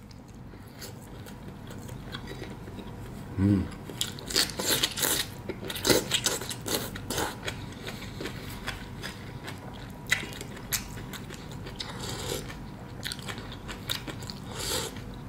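A man chewing a mouthful of braised beef and noodles close to the microphone: repeated wet smacking and mouth clicks, with a brief hum about three and a half seconds in.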